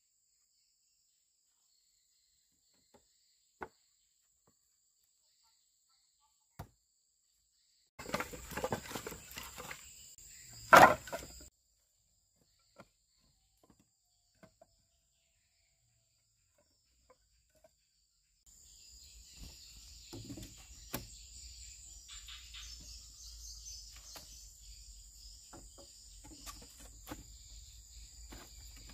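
Forest crickets and other insects trilling high and steadily in stretches, with a few scattered knocks and one loud wooden thunk about eleven seconds in. From about eighteen seconds, rough scraping and rubbing, like wood being worked, runs under the insects.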